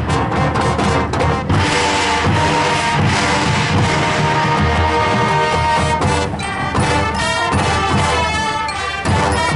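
Marching band playing: held brass chords over percussion, with a few sharp hits near the start.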